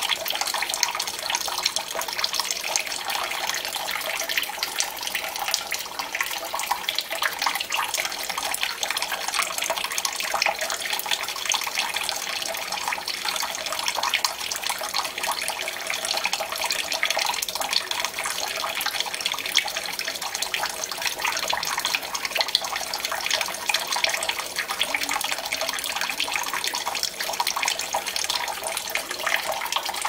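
Kitchen tap running a thin stream into a brim-full glass mug in a stainless steel sink: a steady splashing of water pouring in and overflowing into the sink, picked up by a camera's built-in microphone.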